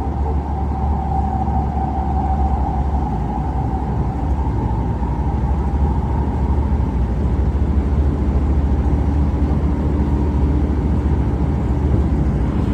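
Metro A Line light-rail train running, heard from inside the car: a steady low rumble, with a whine that is clear at first and fades over the first several seconds.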